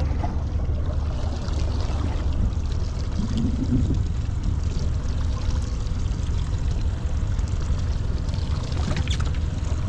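A steady low rumble with water splashing and trickling, as on a small fishing boat drifting on the sea.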